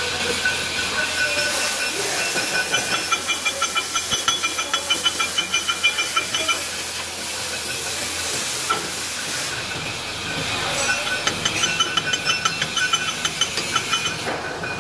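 Stick (shielded metal arc) welding arc burning with a steady hiss and rapid crackle. The crackling grows sharper about two and a half seconds in, eases about seven seconds in, and picks up again about eleven seconds in.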